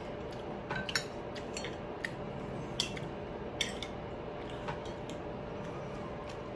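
Cutlery clinking against a plate during eating: a dozen or so light, irregular clicks over a steady low background hum.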